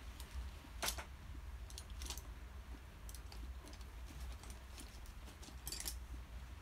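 Scattered light clicks and taps, the loudest about a second in, over a low steady hum.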